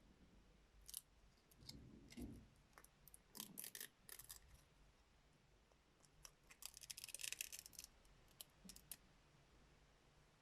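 Faint clicks and light scratching of small plastic parts being handled, as the LCD's flex cable is carefully peeled off a disassembled car-alarm key fob, with a quick run of ticks about seven seconds in.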